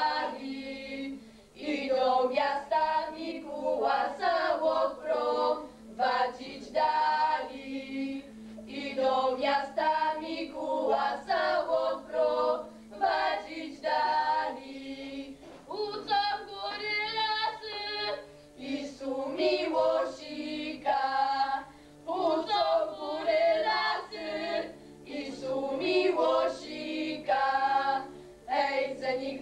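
A group of girls singing a Polish highland folk song unaccompanied, in sung lines separated by short breaks for breath.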